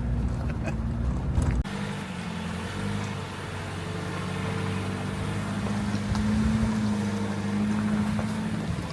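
Off-road vehicle running down a road, a steady engine and drivetrain hum heard from inside the cab. The sound changes abruptly about a second and a half in.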